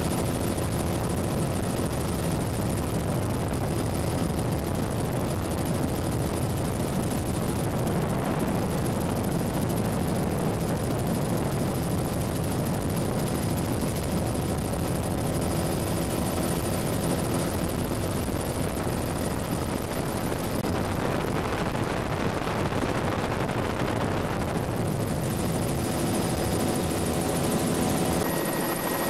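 Bell 206 JetRanger helicopter's turbine engine and rotor running steadily, heard from inside the cabin with the doors off.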